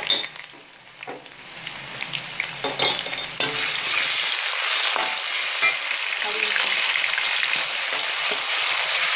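Browned onions and garlic-ginger paste sizzling in hot oil in a metal pan, with a few scrapes and taps of a metal spatula in the first three seconds. The sizzling gets much louder about three and a half seconds in and then holds steady.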